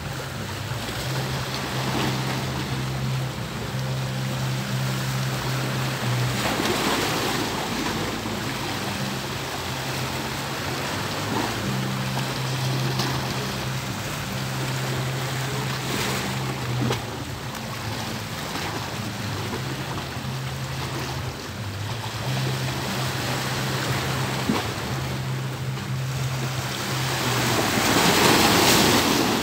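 Small sea waves washing and breaking, with a stronger surge near the end. A low steady hum comes and goes underneath.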